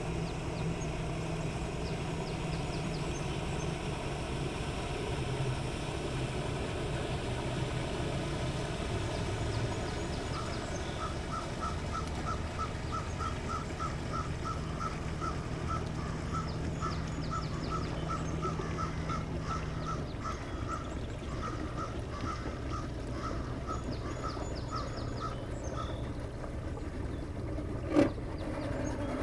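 Low steady hum of a boat engine, with a bird calling a long run of short repeated notes, about three a second, through the middle, faint high chirping of small birds, and one sharp click near the end.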